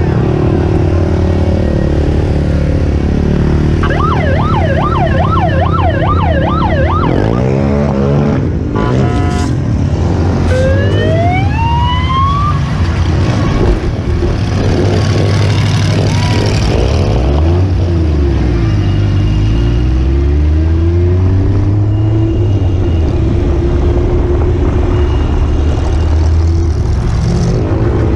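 Steady engine noise from the rollover car's cockpit, with a rapidly repeating siren yelp, about three sweeps a second, from about four to seven seconds in. A few rising wails follow around ten to twelve seconds, and the engine revs up and down near twenty seconds.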